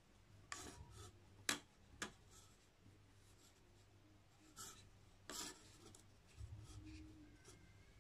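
Faint rustling and rubbing of thick macramé cord being pulled through a square knot by hand, with a few short, sharp clicks.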